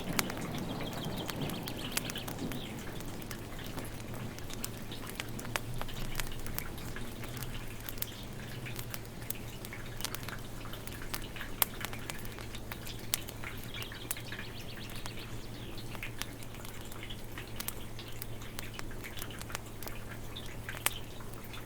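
Burning logs crackling in a fireplace, with irregular sharp pops and snaps.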